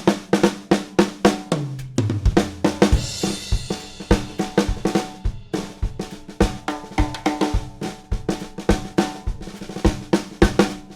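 Drum kit played in a busy groove, featuring a Gretsch Broadkaster snare drum struck in quick, dense strokes over bass drum and hi-hat. About two seconds in, a fill runs down the toms, dropping in pitch, and lands on a cymbal crash.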